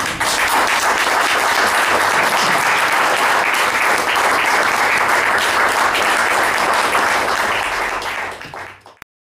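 Audience and panelists applauding, a steady clapping that starts all at once and dies away near the end.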